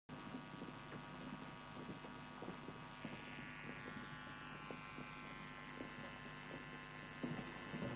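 Faint, steady electrical hum over the hall's room tone, with scattered soft knocks and shuffling as a choir files into place on stage.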